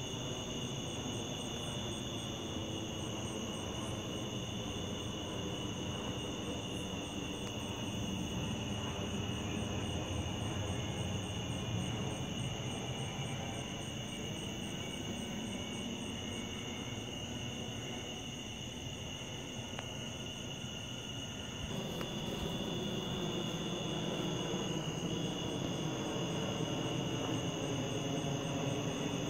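Airplane passing overhead at night: a steady low engine rumble whose pitch slowly slides as it goes over, swelling about two thirds of the way through. Under it runs a constant high, shrill chorus of night insects.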